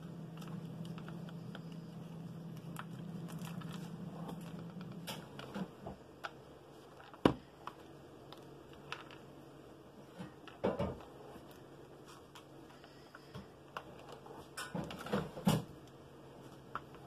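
Small clicks and taps of craft pieces being handled and pressed down one at a time while gluing a paper-plate necklace. One sharp click about seven seconds in is the loudest, and there is a quick cluster of taps near the end. A low steady hum runs under the first few seconds and then stops.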